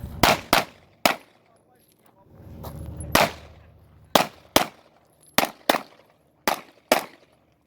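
Glock 45 9mm pistol firing about ten shots, mostly in quick pairs about a third of a second apart, with a pause of roughly two seconds after the first three shots.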